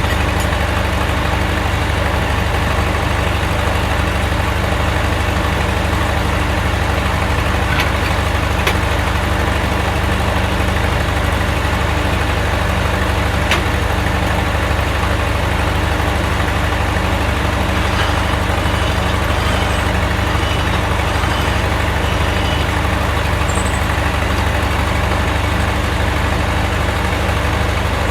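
Engine idling steadily at an even speed, with a few light clicks over it.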